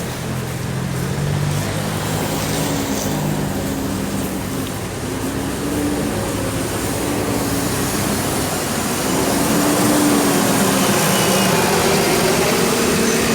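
Road traffic: a vehicle engine running with a low hum that drifts slowly in pitch, over a steady hiss of road noise, growing slightly louder about nine seconds in.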